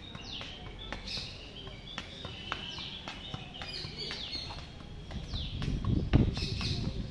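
A football being juggled on foot and knee: a string of light, irregular taps of the ball, with a louder, duller thump about six seconds in. A bird calls repeatedly in the background with short downward-sweeping chirps.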